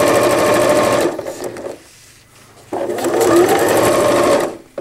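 Electric sewing machine stitching a zipper onto PUL fabric with a zipper foot. It runs for about a second and stops, then runs again for about two seconds from just before the middle and stops shortly before the end.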